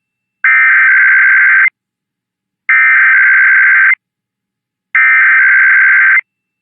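Emergency Alert System SAME header: three identical bursts of shrill, buzzing digital data tones, each about a second and a quarter long with a second of silence between them. This is the encoded header that opens an EAS alert, here a Required Weekly Test.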